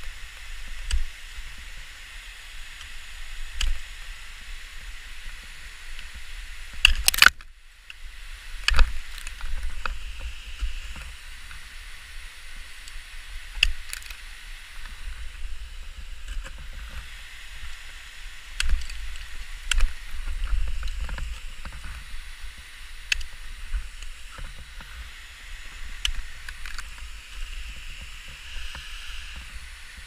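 Ice axes being swung into frozen waterfall ice: sharp knocks every few seconds, the loudest a pair about seven and nine seconds in, over a steady hiss and low rumble.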